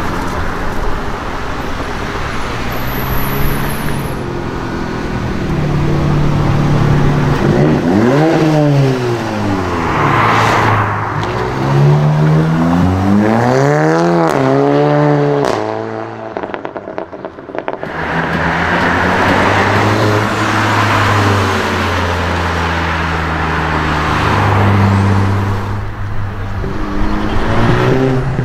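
Volkswagen Golf 7 GTI and Golf R turbocharged 2.0-litre four-cylinder engines accelerating hard, the revs climbing and dropping through several quick gear changes. A short break follows, then a steadier engine drone as another car drives up.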